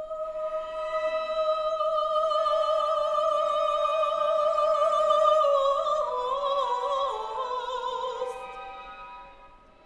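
Soprano singing one long high note with vibrato over soft string orchestra accompaniment, then stepping down in pitch a few times about six seconds in and fading away near the end.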